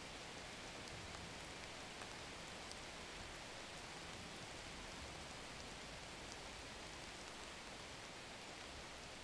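A steady, even hiss with a few faint scattered ticks, much like light rain.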